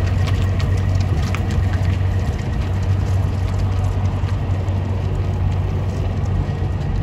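Diesel engine of a long-hood semi truck pulling a loaded flatbed trailer away at low speed: a steady low drone.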